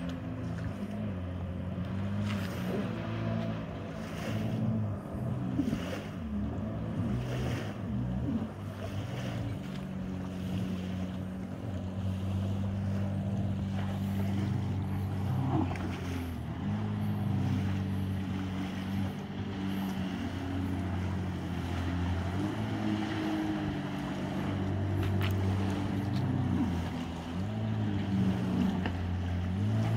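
Jet ski engines running at speed, a steady drone whose pitch steps up and down repeatedly as the watercraft race across the water.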